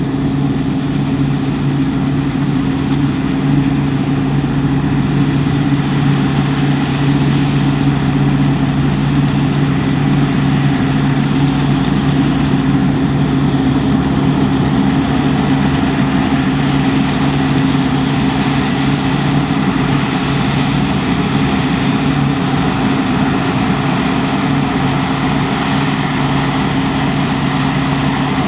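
New Holland CX8.70 combine harvester running steadily, a constant low engine drone with an even machinery rush over it that does not change.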